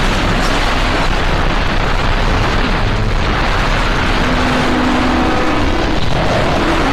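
Harsh digital noise music: a loud, unbroken wall of distorted noise, with a short held low tone buried in it a little past the middle.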